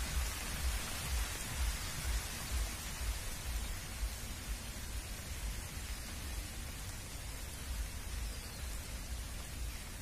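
Steady rain falling on a pond and the surrounding trees, an even hiss, with irregular low rumbling gusts of wind on the microphone.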